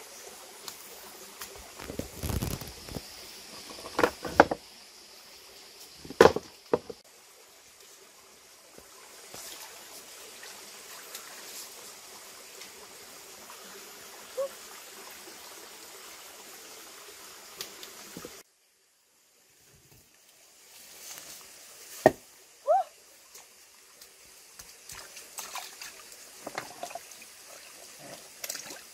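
Shallow stream trickling over rocks, with hands sloshing and splashing in the water and several sharp knocks and splashes as stones are moved.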